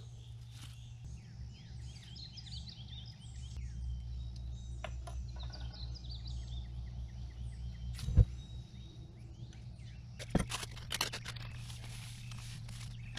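Wild birds chirping with many short, quick, downward-sweeping calls over a steady low hum, with a single sharp knock partway through. Near the end comes a burst of crackling rustles, like a plastic bag being handled.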